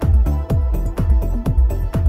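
Electronic background music with a steady beat of deep bass drums.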